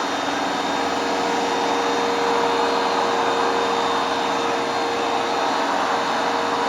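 Hoover Dual Power Max carpet cleaner running steadily, its motor rush carrying one held hum-like tone.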